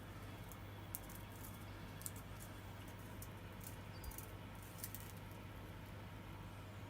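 Faint, scattered small clicks and taps of hands handling parts, a few sharper ones about a second, two, four and five seconds in, over a steady low hum.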